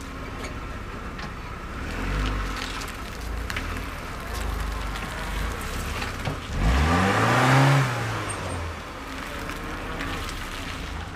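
A car passing by: its engine note rises and then falls, with a rush of noise loudest about seven and a half seconds in, over a low steady rumble.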